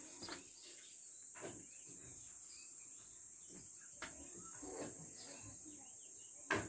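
Faint background ambience with a steady high-pitched hiss, a few soft knocks, and one sharp click near the end.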